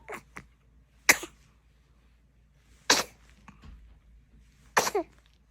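Newborn baby sneezing three times, about two seconds apart, each a short sharp burst. The last sneeze ends in a brief falling cry.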